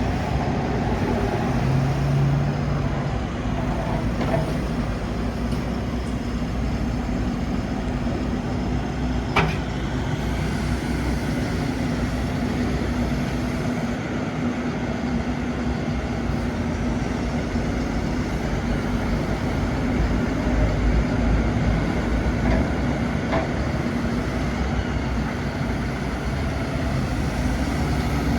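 Perkins 100 hp diesel engine of a Lonking 84C backhoe loader running steadily, with a single sharp click about nine seconds in.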